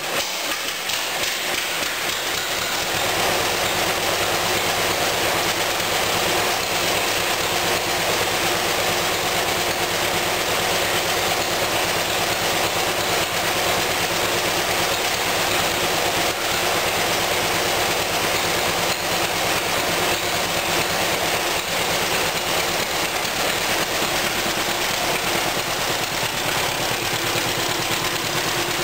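1941 John Deere B's two-cylinder gasoline engine running steadily just after being started, with an even, rhythmic exhaust beat. It gets a little louder about three seconds in and then holds steady.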